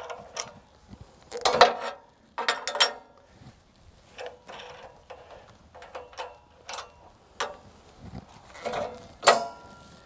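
Galvanized steel ramp-mounting brackets and clamp hardware being handled and lifted off: a series of irregular metal clanks and clicks with short ringing, the loudest about a second and a half in and near the end.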